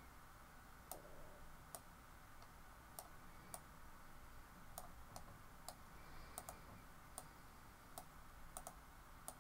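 Computer mouse clicking: faint, sharp single clicks at irregular intervals, some in quick pairs, over a low room hum.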